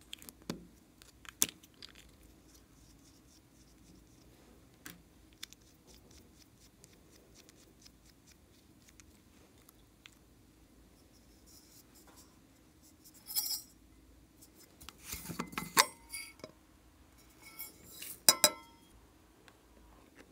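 Small plastic clicks and taps from lipstick tubes being handled over a glass tray, with the tip clinking on the glass. There are a few louder clatters of plastic on glass in the second half.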